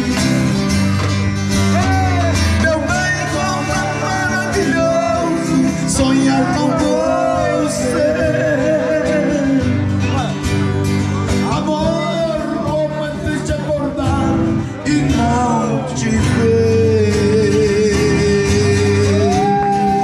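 Background music: a country-style song with guitar and male singing.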